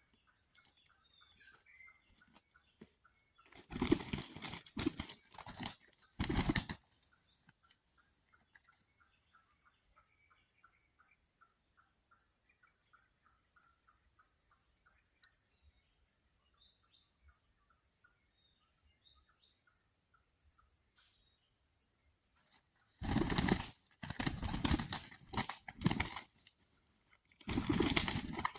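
Jungle fowl beating its wings in three loud flurries: one about four seconds in, a longer one near the end, and a short last one. Faint small chirps repeat in the quiet stretch between them.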